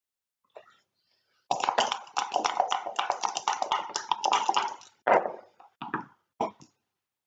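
Two backgammon dice shaken in a cup with a fast rattle for about three seconds. They are then thrown onto the board, landing with a sharp clack and a few short bounces before coming to rest.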